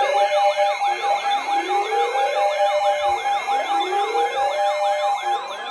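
Several electronic sirens sounding at once. Fast yelps cycle several times a second over slower rising wails about every two seconds, with a steady pulsing tone underneath, easing off slightly near the end.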